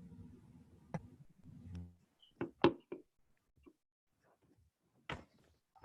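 Quiet room tone broken by a few faint, short clicks and knocks: one about a second in, a quick cluster of three a little later, and one more near the end.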